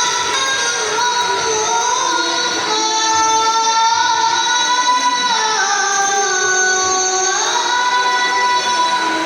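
A child chanting in the melismatic Islamic recitation style, holding long, high notes. The pitch steps down about five seconds in and glides back up near the end.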